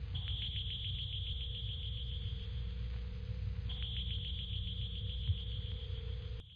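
Synthetic UFO sound effect: a deep rumbling drone with a steady mid hum and a high, rapidly pulsing electronic tone. It cuts off abruptly near the end, leaving only faint cricket-like chirping.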